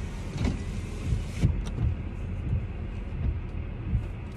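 Low, steady rumble of a car running, heard from inside the cabin, with a couple of soft knocks in the first second and a half; the higher hiss dies down about a second and a half in.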